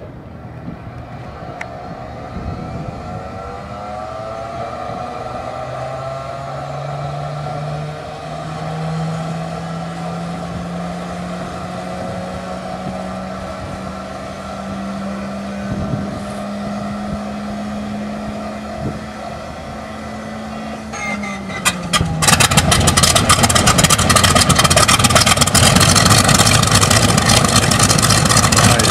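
A Boeing Stearman biplane's radial engine running just after start-up, its pitch climbing slowly over the first twenty seconds. About 22 seconds in, a much louder rushing noise suddenly takes over.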